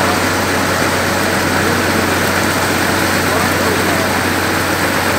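Motor vehicle engine running steadily with a constant low hum, under an even rushing noise.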